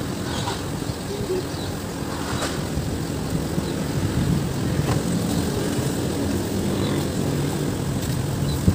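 A steady low engine rumble of nearby motor traffic, with a few faint scrapes of a hand-held metal cheese grater.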